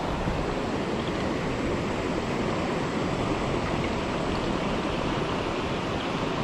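Steady rushing of a river flowing past a rocky bank, an even water noise with no breaks.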